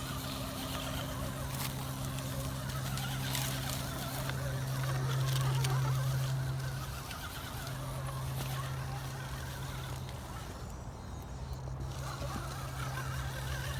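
Axial SCX10 Deadbolt RC rock crawler's electric motor and geared drivetrain whining steadily as the truck crawls over rocks, with scattered clicks and ticks from the tires and chassis. The whine swells about halfway through, then eases off.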